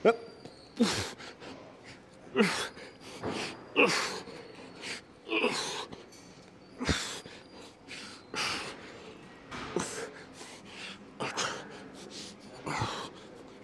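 A man breathing hard with effort through a set of dumbbell reps: a sharp, hissy exhale or grunt about every one and a half seconds, one with each rep. There is a single sharp knock about seven seconds in.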